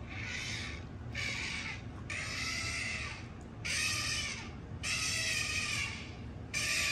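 Recorded animal calls played through a phone speaker: a run of drawn-out pitched calls, each about a second long, separated by short gaps.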